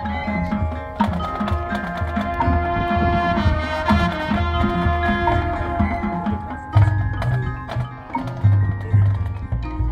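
Marching band playing its field show live: held pitched notes and ringing percussion over a steady low pulse, with louder low drum hits starting about seven seconds in.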